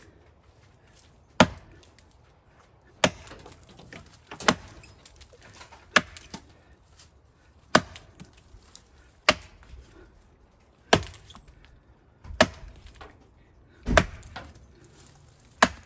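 Light boys axe chopping into the trunk of a large standing tree: about ten sharp blows into the wood at a steady pace, roughly one every second and a half.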